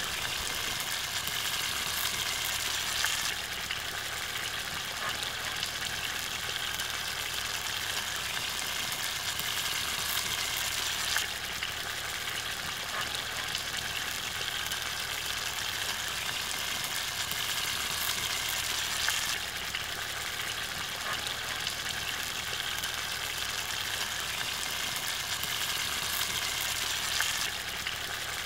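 Egg curry gravy simmering and sizzling in a kadai over a wood fire: a steady bubbling hiss whose brightness shifts every several seconds.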